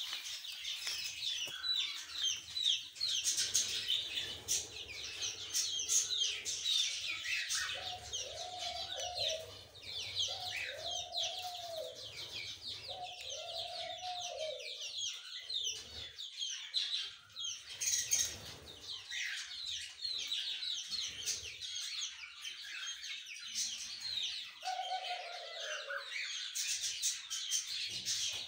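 Brood of chicks peeping continuously in rapid, high-pitched chirps. A few lower, drawn-out calls rise and fall beneath them: three in a row from about eight to fifteen seconds in, and one more near the end.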